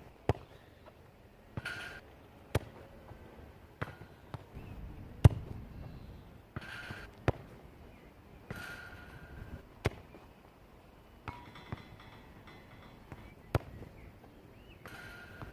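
A football being kicked again and again: single sharp thuds every two to three seconds, the loudest about five seconds in.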